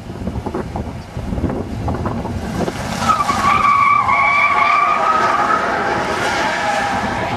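A Buick station wagon's 5.7-litre rear-wheel-drive V8 revving hard while it spins its rear tires in donuts. A loud, steady tire squeal comes in about three seconds in and is loudest for the next couple of seconds.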